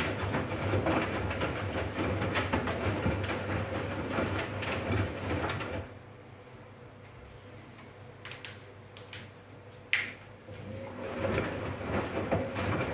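Arçelik front-loading washing machine tumbling wet laundry in the rinse water: a steady motor hum with swishing and sloshing for about six seconds. The drum then stops for about five seconds, with a few soft knocks and drips, and starts turning again about a second before the end, as the wash cycle alternates turning and pausing.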